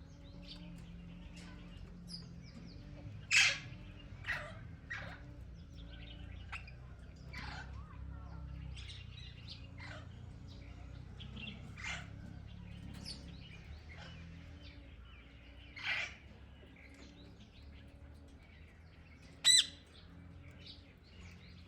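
Ring-necked parakeets calling in short, shrill squawks, scattered irregularly, three of them much louder than the rest, with other bird chirps between.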